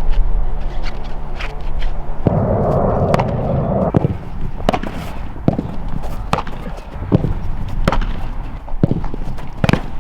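Irregular sharp slaps and clicks, a dozen or more. A dense burst of noise begins about two seconds in and lasts under two seconds.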